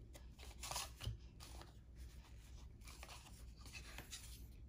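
Faint rustle and light taps of basketball trading cards being handled and set down on piles while they are sorted, a few soft scrapes and ticks scattered through.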